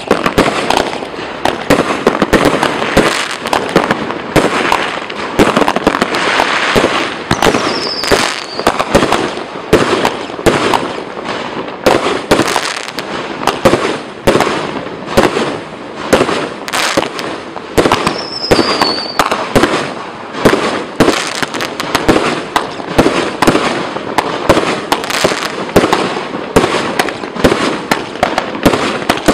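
A 1.3G "Doomsday" 61-shot firework cake firing, shot after shot about once or twice a second, with the bursting effects hissing and crackling between shots. A short falling whistle is heard three times.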